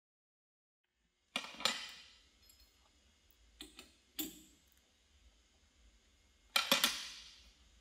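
Sharp metal clanks and clicks from a lathe's three-jaw chuck and chuck key being handled as the workpiece is set and tightened, in three short groups: about a second and a half in, around four seconds in, and near the end, over a faint low shop hum.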